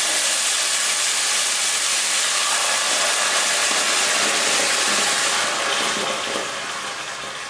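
Coconut milk poured into a hot, oiled stainless pan, sizzling and hissing loudly as it steams; the hiss eases off over the last couple of seconds.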